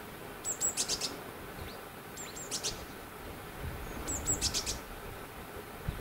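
A small bird calling in three short bursts of high chirps, about two seconds apart. Each burst is a pair of thin notes followed by a quick run of sharper ones.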